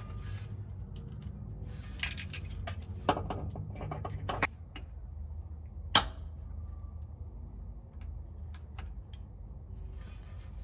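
Scattered metallic clicks and taps of a Torx driver working at the mounting screws of an ABS module (EBCM), with small clusters of clicks a couple of seconds in and one sharp click about six seconds in, over a low steady hum.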